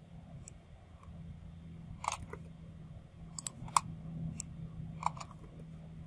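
Several scattered clicks from a computer mouse and keyboard, over a low steady hum.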